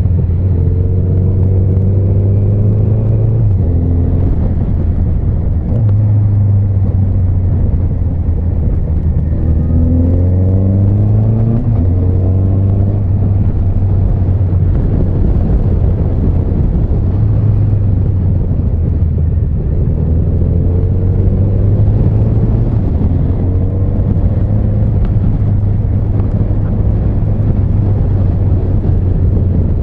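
Honda CB1300 Super Bol d'Or's inline-four engine running under way. Its note steps up and down in pitch several times and rises in longer sweeps about ten seconds in and again about twenty seconds in, over a steady rushing noise.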